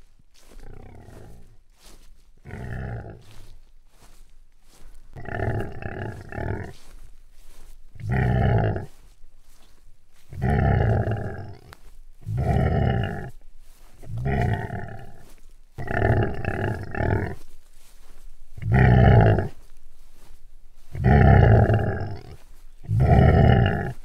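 A deep animal call repeated about every two seconds, each call lasting about a second, growing louder as it goes on.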